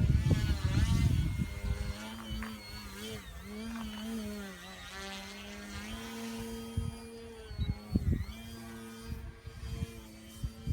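Electric RC plane's brushless motor and propeller humming overhead, the pitch wavering up and down as the throttle changes. A low rumble of wind on the microphone comes first, then drops away after about a second and a half.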